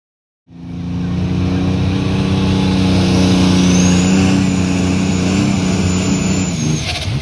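Super stock pulling tractor's turbocharged diesel engine running at full throttle under load while pulling the sled. It cuts in about half a second in and holds a steady pitch, with a high whine over it from about three seconds in. The pitch drops just before the end.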